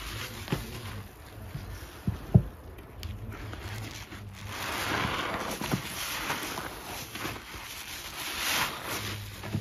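A wet sponge loaded with Ajax powder paste is squeezed and kneaded in rubber-gloved hands, squelching and crackling with foam in swells. Two sharp low knocks about two seconds in are the loudest sounds.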